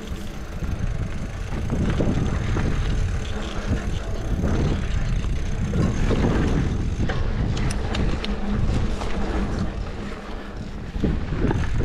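Mountain bike riding down a dirt trail: wind buffeting the microphone over rumbling tyre noise on dirt and rock, with scattered sharp clicks and rattles from the bike, most of them a little past the middle.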